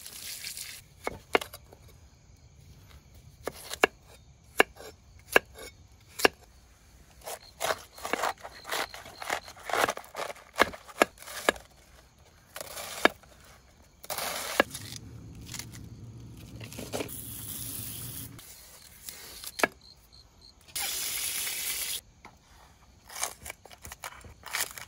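Irregular sharp knocks and chopping strokes with scraping between them, and a few short bursts of hiss; a low hum runs for a few seconds past the middle.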